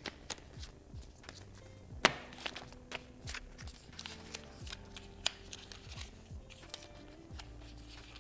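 Packaging of an action camera being handled: irregular clicks, taps and light rustles of cardboard and plastic, the loudest a sharp click about two seconds in. Soft background music with a beat runs underneath.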